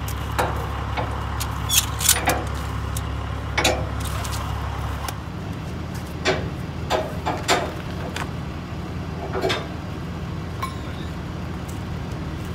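Ratchet straps being loosened on a steel shipping container: a series of sharp metal clicks and clacks, in clusters over the first few seconds and again in the middle, over a steady low rumble.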